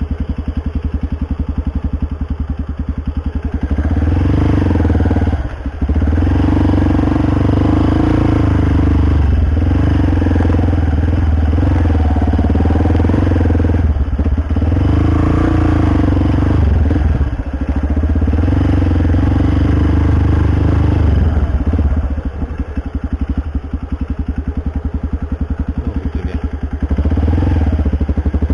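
Small motorcycle engine running. It starts at a low, steady pace, picks up to higher revs a few seconds in with a couple of brief dips, and eases back near the end.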